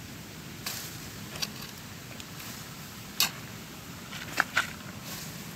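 Small hand trowel digging in stony soil: a handful of short, sharp clicks and scrapes as the blade works the ground, the loudest a little past the middle and two close together near the end.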